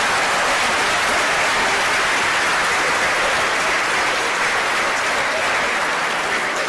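Audience applauding in a long, steady round of clapping.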